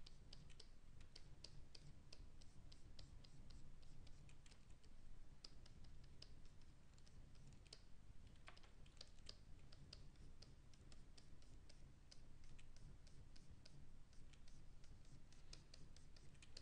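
Faint, irregular clicking and tapping from computer input devices while a digital sculpt is worked.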